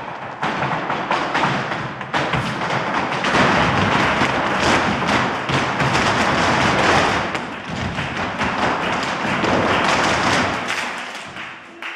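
Flamenco footwork from a group of dancers: heeled shoes stamping and tapping on a wooden floor in many overlapping strikes, with flamenco music playing along.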